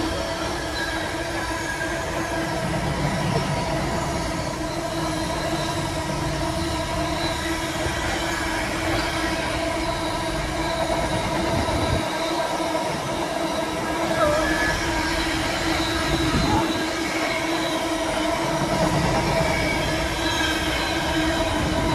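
Container wagons of a freight train rolling past at speed: a steady rumble of wheels on rail, with steady ringing tones running through it.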